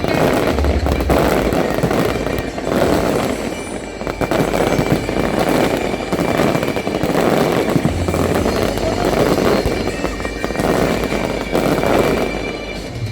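Fireworks going off in a dense, continuous barrage of bangs and crackling, in waves every second or two, with music playing underneath.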